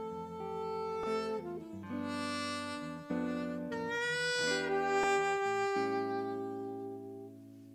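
Alto saxophone playing a slow jazz ballad melody of long held notes over soft band chords. The phrase ends on a long note that fades out near the end.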